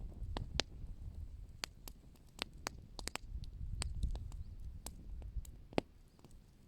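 Wood fire crackling: irregular sharp pops and snaps of burning wood, more than a dozen, over a low rumble.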